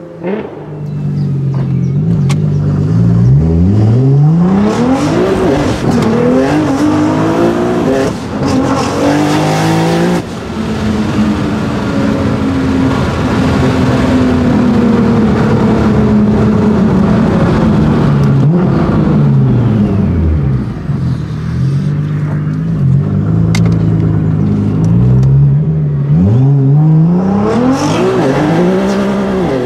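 Nissan GT-R R35's twin-turbo V6 heard from inside the cabin, accelerating hard through the gears: the engine note climbs and drops back at each upshift. It then settles to a steadier, falling note, dips low around the middle, and climbs hard again near the end.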